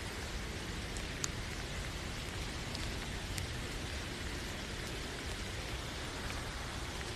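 Steady rain falling, an even hiss with a few sharp drop ticks scattered through it.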